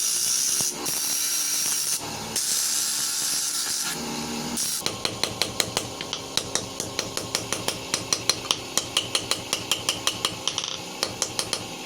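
Hand metalworking on a knife blade. First come a few seconds of rasping, hiss-like strokes in short bursts. Then come rapid, light metallic taps, about four a second, each with a brief ring, that stop just before the end.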